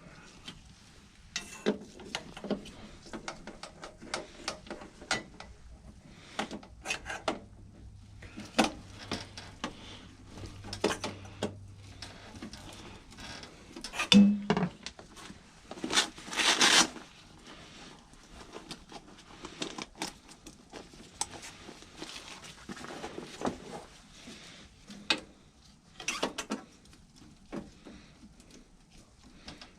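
Irregular metallic clinks, taps and knocks of hand tools and furnace parts being handled while an inducer motor is replaced, with a heavier knock about halfway through and a scraping rasp of about a second just after it.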